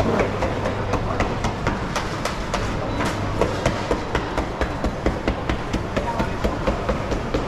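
Busy market hall ambience: a quick, uneven clatter of sharp clicks and knocks, several a second, over a steady low hum and background chatter.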